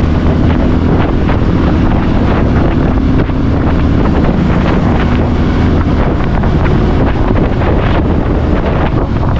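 Wind rushing over the microphone of a moving motorcycle, over the steady hum of the Bajaj Pulsar 150's single-cylinder engine held at cruising speed.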